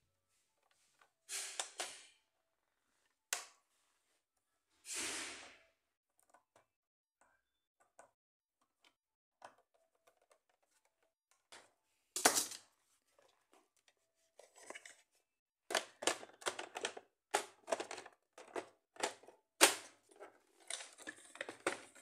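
Hard plastic clicks, knocks and short scrapes from handling a Roomba e5 robot vacuum and its side brush during reassembly. Sparse at first, with one loud knock about twelve seconds in and a quick run of clicks in the last third.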